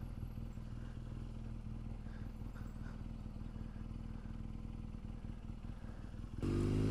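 BMW R1200GS's flat-twin engine running at low revs while the bike rolls slowly. About six seconds in, the revs rise and the engine grows louder as the bike pulls away.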